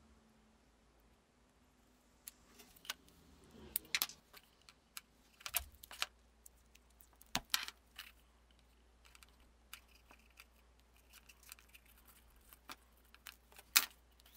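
Scattered light clicks and taps of small parts being handled by hand: a thin brass tube, a tube of glue and a plastic syringe on clear tubing. The sharpest click comes near the end.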